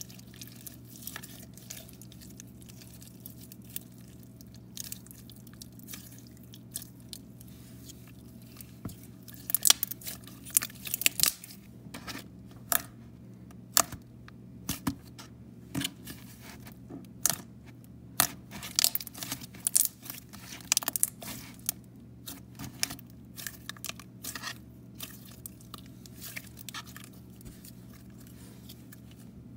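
Purple slime being squished, pressed and stretched by hand, giving irregular sticky clicks, pops and crackles that come in quick clusters about a third and two thirds of the way through.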